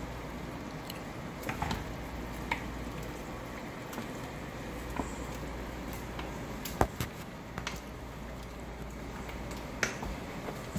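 Wooden spoon stirring a pot of soup, with scattered light taps and knocks against the stainless steel pot and one sharper knock about two-thirds of the way through, over a steady low hum.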